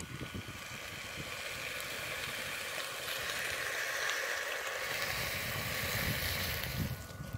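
Wheat beer poured from a bottle into a steel stew pot of browned beef and vegetables: a steady splashing, fizzing hiss that grows louder about three seconds in as the beer foams up in the pot.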